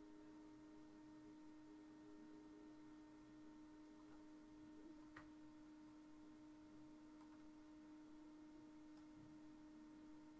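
Near silence: room tone with a faint steady hum, and one faint click about five seconds in.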